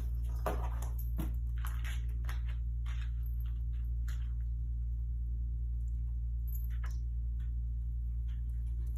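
A kitten playing with a plastic spring toy, making a run of short scuffs, clatters and clicks that thin out after about four seconds, over a steady low hum.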